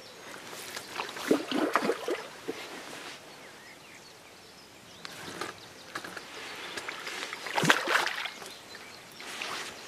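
Hooked carp splashing and thrashing at the surface close to the bank as it is played towards the landing net, in bursts about a second in and again near eight seconds.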